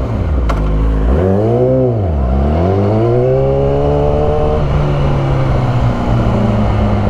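Dodge Viper V10 engine pulling away. Its pitch rises, drops sharply a little over two seconds in, climbs again, then holds steady.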